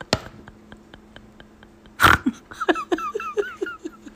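Dog vocalising: a sudden loud burst about two seconds in, then a quick run of six or seven short rising squeaks, over a faint steady hum.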